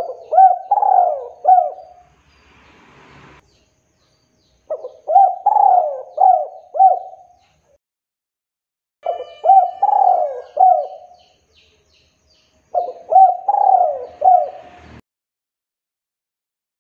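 Male spotted dove (tekukur) cooing: four phrases, about one every four seconds, each a quick run of several rising-and-falling coo notes.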